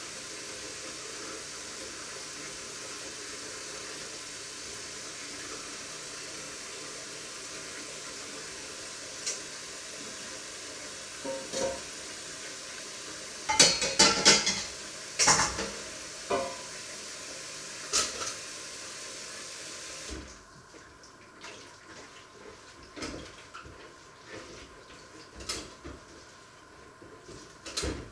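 Washing up at a kitchen sink: a tap runs with a steady hiss while metal pots and pans clatter against each other, loudest in a burst of knocks around the middle. About two-thirds through the running water stops, leaving softer clinks and scrubbing in the sink.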